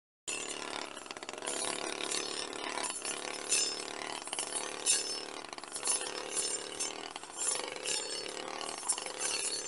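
Backpack brush cutter running, its circular-saw-type blade cutting through tall grass with sharp irregular clicks and ticks as it strikes the stems.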